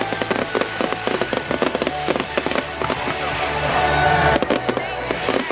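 Fireworks crackling and banging in rapid succession, over pop music with a steady bass line.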